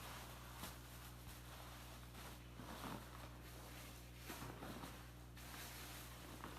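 Faint rustling and handling sounds with a few soft knocks over a steady low hum.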